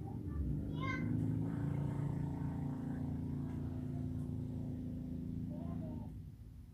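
A motor engine running with a low steady hum, dying away about six seconds in, with a short high-pitched call about a second in and another near the end.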